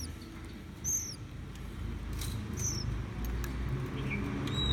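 Oriental magpie-robin nestlings giving short, high begging cheeps, a few falling chirps about a second apart: the chicks are hungry and begging to be fed.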